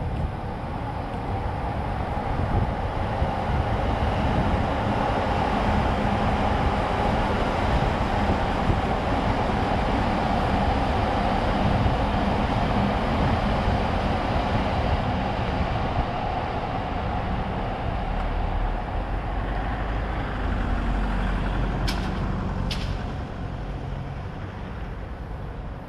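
Commuter train rolling past on the tracks beside the road, a steady rumble that builds, holds and eases off near the end, mixed with road traffic. Two sharp clicks come near the end.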